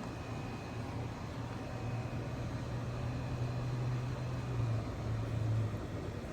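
A low steady hum over a constant background noise. The hum grows a little louder from about two seconds in and stops shortly before the end.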